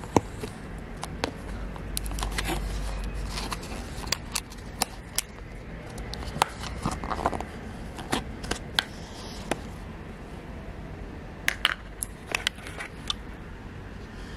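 Fingers picking and prying at the tight snap-on lid of a paper cup of rice porridge: scattered clicks and small scrapes, sometimes several in quick succession, as the lid resists coming off. A low steady hum runs underneath.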